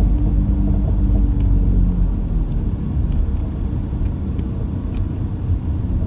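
Engine and tyre rumble of a moving vehicle heard from inside its cabin: a steady low drone, with an engine hum standing out for about the first two seconds.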